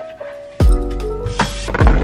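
Background music: held chords, with a drum beat and deep bass coming in about half a second in.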